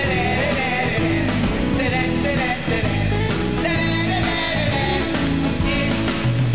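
Live rock song with a singer and band, guitar and bass over a steady beat.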